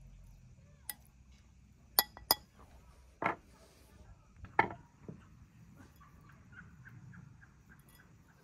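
Metal serving tongs clinking against a ceramic bowl while spaghetti is plated: about five sharp, separate clinks over the first five seconds, the loudest two close together about two seconds in.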